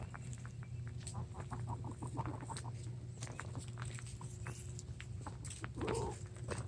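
Farm poultry calling, with scattered light clicks and scratching and one short call near the end, over a steady low hum.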